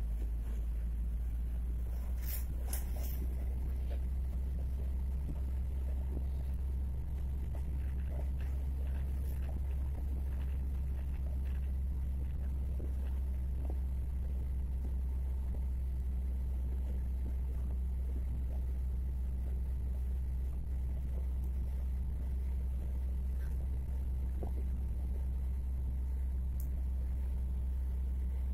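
Steady low rumble of a car driving on a smooth road, heard from inside the cabin: engine and tyre noise at an even cruising speed, with a couple of faint clicks about two seconds in.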